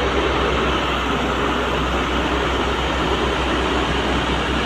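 Hyundai hydraulic excavator's diesel engine running steadily under load, with a low throb underneath, as the machine swings its boom and bucket.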